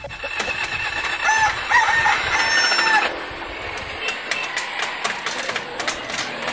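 A rooster crowing once, a long call of several gliding, pitched phrases in the first half. After it comes a steady outdoor hiss with scattered clicks.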